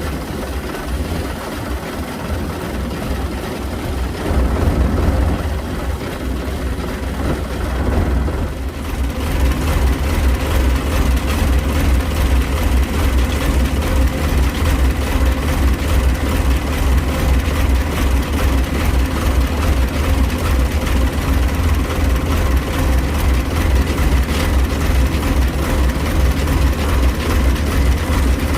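Engine of a tracked rice-field machine running steadily, with a strong low drone. It grows louder about 4 s in and again about 9 s in, then holds steady.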